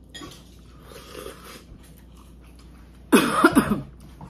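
Slurping soup off a spoon, then about three seconds in a short, loud, breathy cough-like outburst from the eater.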